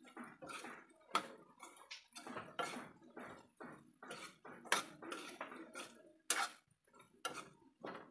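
A spatula scraping and clacking against a kadai while chopped vegetables are stirred, in irregular strokes with several sharp knocks.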